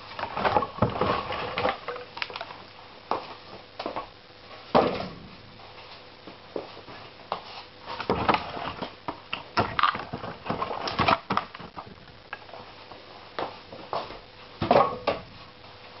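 Firewood and kindling being handled and put into a wood stove's cast-iron firebox: irregular knocks, clunks and rustling, in clusters about a second in, around five seconds, from eight to eleven seconds and near the end.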